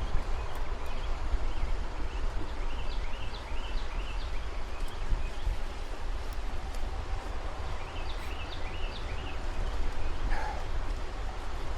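Wind rumbling on the microphone, with a bird calling twice in short runs of quick, rising chirps.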